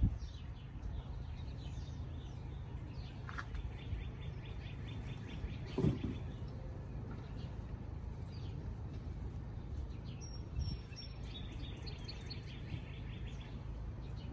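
Songbirds trilling and chirping, with rapid evenly spaced trills heard twice, over a steady low outdoor rumble.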